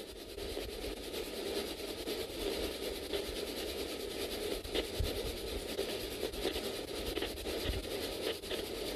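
Steady low outdoor background noise with a faint even hiss, broken by a few soft clicks about five and eight seconds in.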